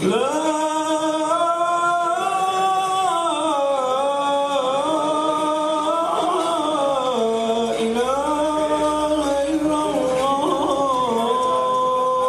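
A single man's voice chanting unaccompanied into a microphone over loudspeakers, in long held notes that slide between pitches, ending on a long steady note.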